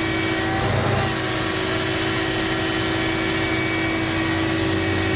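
Komatsu PC1250-8 excavator running steadily, its engine and hydraulics giving a constant drone with a steady whine over it.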